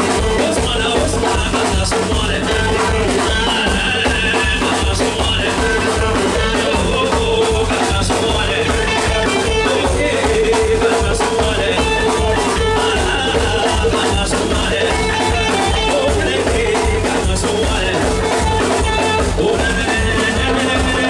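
Live zouglou band playing with a steady beat: drum kit, hand drums and guitar, with a singer's voice over them.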